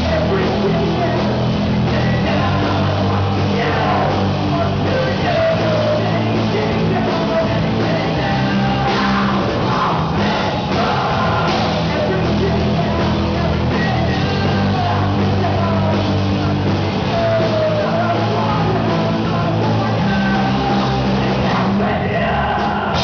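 Live rock band playing loud and steady with guitars, bass and drums, a singer's voice over the top.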